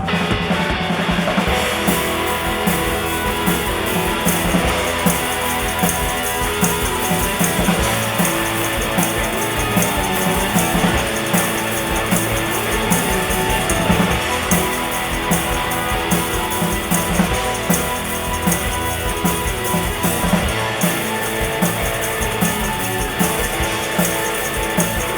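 Live rock band playing an instrumental intro: drum kit keeping a steady beat under electric guitars and bass, before the vocals come in.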